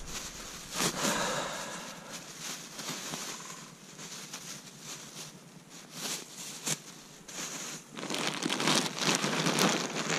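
Irregular crunching and crackling of snow close to the microphone, sparse through the middle and growing dense and louder for the last couple of seconds.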